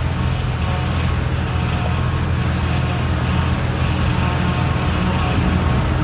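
John Deere forage harvester chopping silage, its engine running as a steady, even drone with no pauses or changes.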